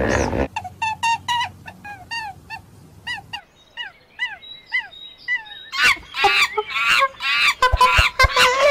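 Squirrel monkeys calling: a string of short, high chirps, each falling in pitch, then from about six seconds in a louder, denser run of chirps.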